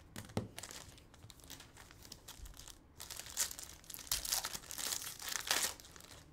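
Foil trading-card pack wrapper crinkling as it is torn open and peeled apart by hand, in irregular crackles that get louder about halfway through.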